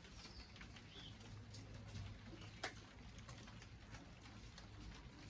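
Near silence: room tone with a faint low hum and scattered faint ticks, with one sharper click about two and a half seconds in.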